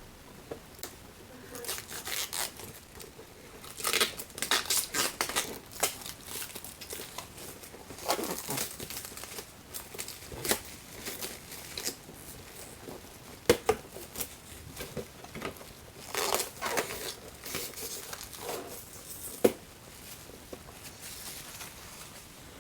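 Plastic packaging crinkling and tearing in irregular bursts as a boxed vinyl figure is unwrapped and handled, with a couple of sharp clicks.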